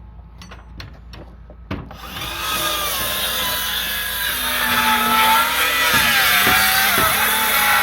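A few clicks, then about two seconds in a Hilti 6-1/2" cordless circular saw spins up and runs, ripping lengthwise through a 2x10 board. Its motor whine wavers and dips as the blade loads in the cut.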